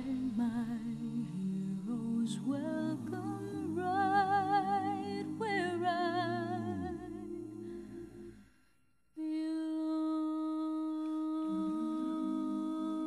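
Background music with a wordless, humming-like voice that holds wavering notes and fades out about eight seconds in. After a moment of silence, new music of steady held tones begins about nine seconds in.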